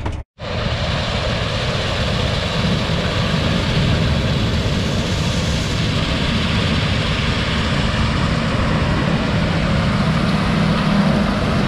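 Steady, even machine running noise after a brief cut-out at the start.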